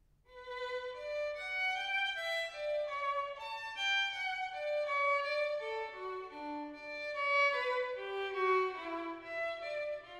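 Background music: a violin playing a melody, note after note at a lively pace, starting about a quarter second in.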